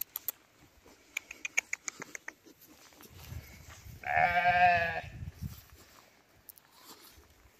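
A sheep bleating once, one wavering call about a second long near the middle, with a low rumble under it. Earlier comes a quick run of sharp clicks.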